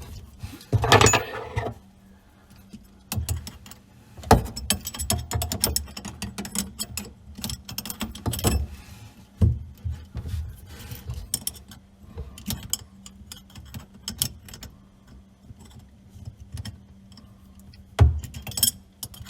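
Irregular clicks, knocks and scrapes of plumbing fittings and hand tools being worked while a T fitting is connected to the ice-maker supply line, with louder bursts of handling about a second in and near the end. A faint steady hum sits underneath.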